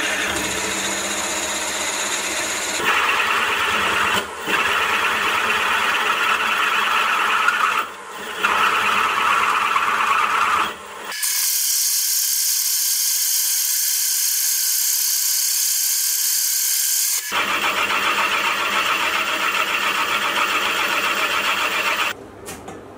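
Mini milling machine spindle running under cut, drilling and then boring a bearing pocket in a metal block: a steady motor whine with cutting noise. It breaks off abruptly several times, and for about six seconds in the middle only a high hiss is heard.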